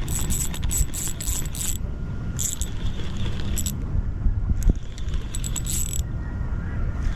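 Fishing reel being cranked in short spells, a ratcheting, clicking whir that starts and stops several times, over a steady low rumble.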